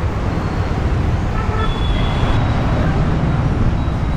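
Busy roundabout traffic: a steady rumble of buses, cars, auto-rickshaws and motorbikes passing continuously.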